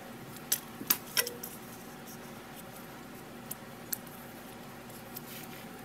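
Handling noise from a flexible ruler and an aluminium drinks can being measured: three sharp light clicks and taps in the first second and a half, a couple of fainter ticks later, over a steady faint hum.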